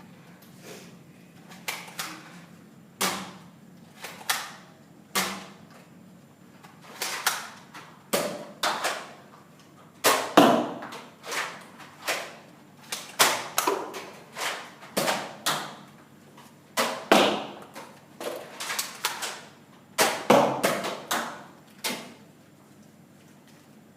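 Nerf blasters firing and foam darts smacking into surfaces: a long, irregular run of sharp pops and thuds, some singly and some in quick clusters, in a small room.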